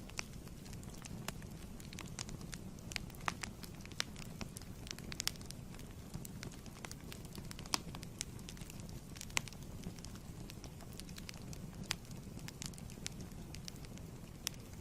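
Fire in a fireplace crackling: irregular sharp pops and snaps, several a second, over a steady low rumble of the flames.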